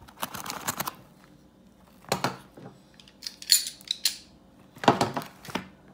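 Cardboard shipping box being handled and cut open with a knife: about four separate scraping and rustling noises, the loudest about three and a half and five seconds in.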